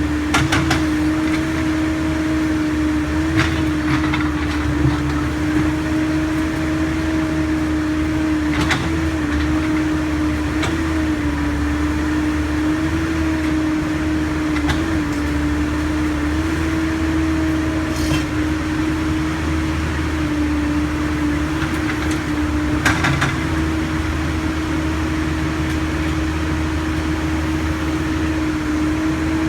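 Backhoe's diesel engine running steadily with a hum that wavers slightly in pitch over a low rumble, broken by about half a dozen short, sharp knocks as the machine works the street surface.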